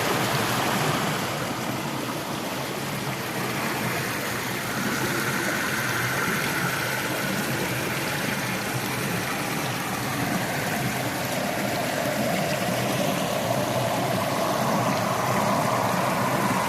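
Steady rush of running water, like a stream or small waterfall, an even hiss with no breaks.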